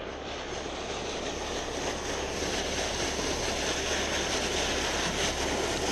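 Pond aerator churning the water surface: a steady rush of splashing water, growing slightly louder, over a low steady hum.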